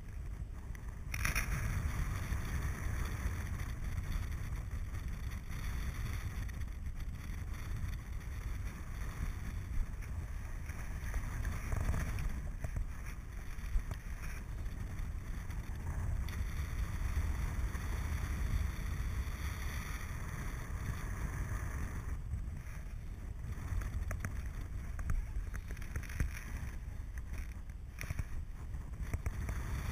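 Wind rushing over the microphone of a camera on a paraglider in flight: a steady low rumble that swells and eases slightly.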